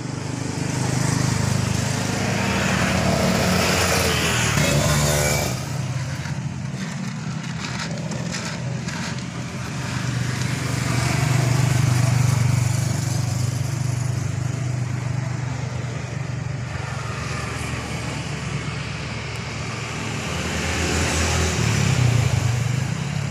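Road traffic: a steady low engine hum that swells and fades about three times as vehicles pass, with a few light clicks partway through.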